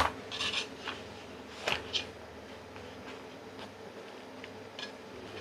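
Kitchen handling noises as pizza dough on a silicone mat is laid onto a metal pizza pan and pressed down by hand: a sharp knock at the start, brief rustles and a couple of light taps about two seconds in, then a few faint ticks over a steady low hum.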